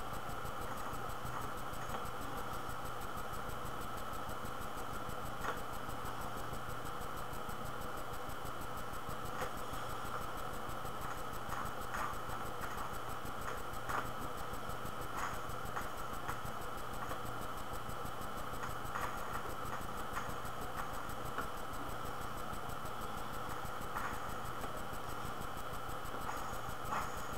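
Steady low hum and hiss of room tone and microphone noise, with faint scattered clicks every few seconds.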